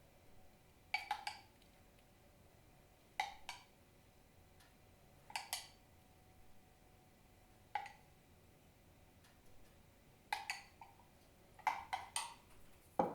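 Light clinks and knocks of a kitchen utensil against a dish, single or in quick pairs about every two seconds, each with a short ring.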